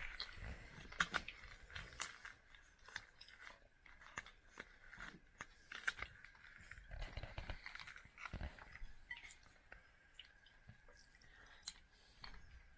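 People chewing and crunching hard sweets, with irregular small crackles and clicks: brittle lollipops and popping candy being eaten.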